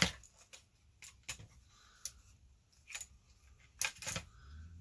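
Scattered sharp clicks and light clatter of small plastic and metal radio parts being handled and pried apart by hand, with a denser cluster of clicks about four seconds in.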